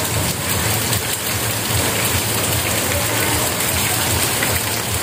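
Steady heavy rain pouring onto standing floodwater and tree leaves.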